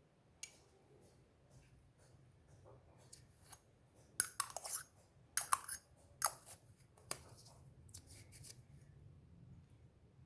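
Hands handling a miniature toy kitchen set and its packaging: light clicks, then several sharp crinkly rustles clustered in the middle, with scattered ticks after them.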